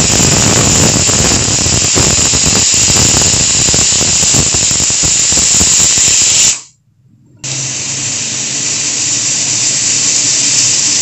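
Stovetop pressure cooker whistling: steam shrieking and hissing out past the weighted whistle on the lid as the cooker reaches full pressure on a high flame. The shriek stops abruptly about two-thirds of the way through, then starts again a little quieter.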